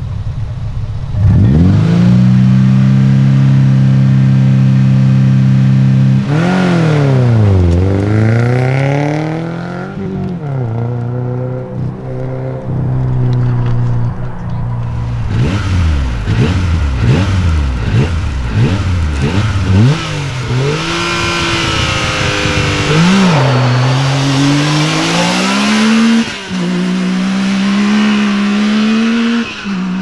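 Rally car engines launching from a stage start. A Subaru Impreza rally car's engine is held at high steady revs for about five seconds, then drops and climbs in steps through the gears as it pulls away and fades. A side-by-side's engine then blips its revs quickly up and down several times before launching and climbing through the gears the same way.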